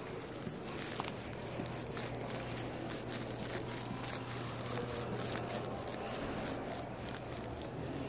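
Crinkly rustling and handling noise, many small irregular crackles, over a steady low hum.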